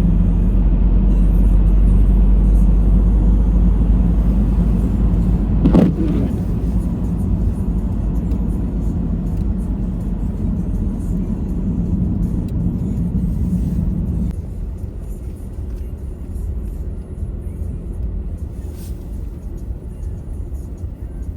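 Steady low rumble of a motor vehicle, with a brief sharp sound about six seconds in; the rumble drops in level about fourteen seconds in.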